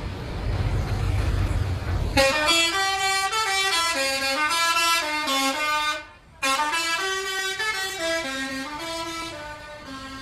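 A bus's telolet horn plays a stepping multi-note tune after a low rumble. The tune breaks off briefly about six seconds in, then plays again and fades near the end.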